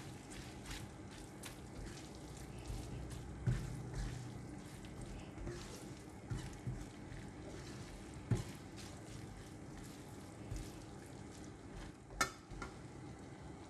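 Silicone spatula stirring and tossing stir-fried cabbage, luffa and egg in a non-stick wok, with soft scrapes and a faint sizzle. A single sharp tap near the end.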